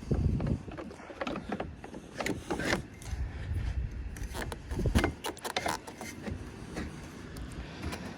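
Roof rack crossbar being fed into the roof side rail and worked along it by hand: scattered clicks and knocks over low handling rumble.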